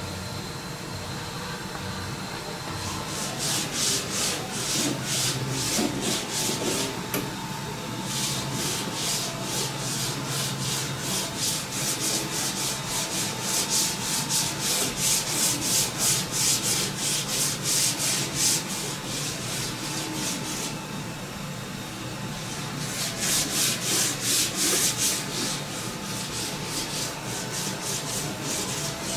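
A large bare wooden subwoofer box being hand-sanded with a sanding sponge: quick back-and-forth rasping strokes in long runs, with two short pauses.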